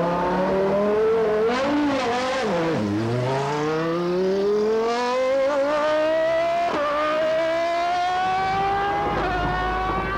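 Stewart SF1 Formula One car's Ford-Cosworth V10 accelerating away down the test strip. Its note drops sharply about three seconds in, then climbs steadily for several seconds, with brief breaks near the end.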